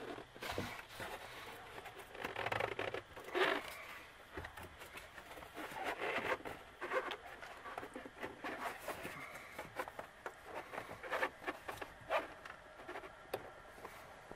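Hard plastic of a stock engine airbox scraping, knocking and clicking as it is handled and worked loose by hand; the noises come irregularly.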